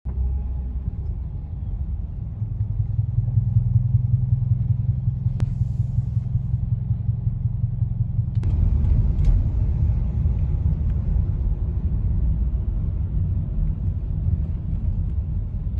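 Steady low rumble of a car's engine and road noise heard from inside the cabin while driving, with a single click about five seconds in and the rumble shifting about halfway through.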